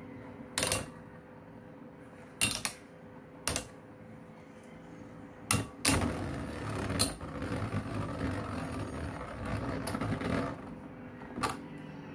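Infinity Nado spinning tops clacking against each other and the arena in sharp single knocks, with a stretch of rattling, scraping contact lasting about four seconds in the middle.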